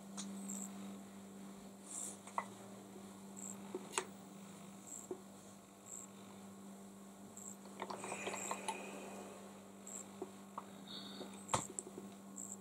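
Faint, steady electrical hum, with a few light clicks and a short rustle about eight seconds in as a steam iron is pressed and shifted over a cotton quilt block.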